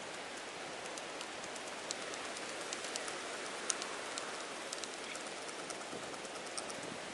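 Irregular light crackling and ticking of dry leaves and twigs being handled, over a steady background hiss.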